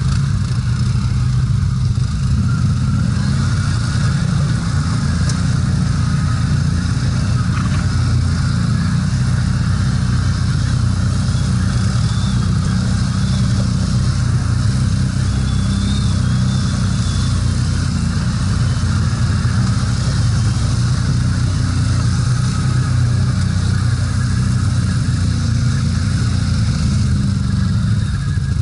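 Can-Am ATV engine running at low, fairly steady revs as the quad crawls over mud and rocks, heard from the rider's seat.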